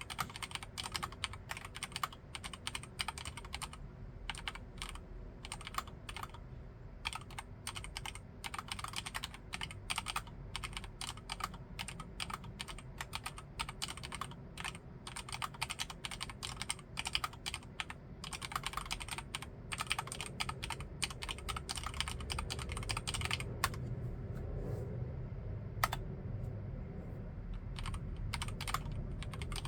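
Typing on a Filco Majestouch Xacro M10SP mechanical keyboard with Cherry MX Red linear switches, a fast, steady run of key presses. The keystrokes thin out to a few separate presses for the last several seconds.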